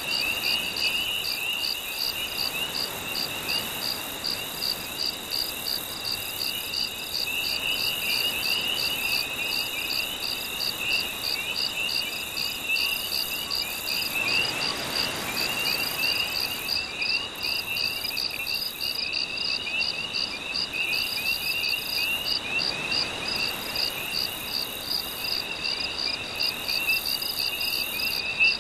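Night chorus of crickets and frogs: a steady, rapidly pulsing trill over a busy band of repeated chirps. A soft wash of gentle waves swells up about halfway through and again later.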